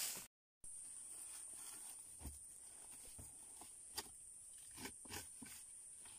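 Hands brushing and scraping loose dry soil: a burst of brushing at the start, then a few scattered soft scrapes and taps, over a steady high thin whine.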